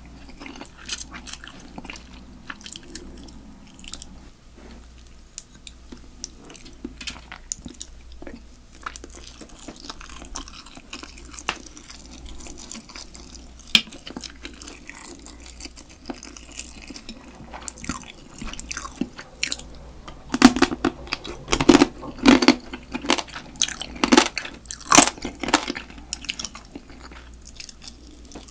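Close-miked chewing and crunching of spicy marinated raw crab (yangnyeom-gejang), the crab shell cracking between the teeth. The crunches come in irregular runs, with the loudest and densest run about two-thirds of the way through.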